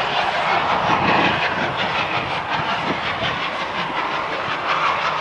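Steam locomotives working hard as they pull away, their exhaust beats coming in a steady run with a hiss of steam.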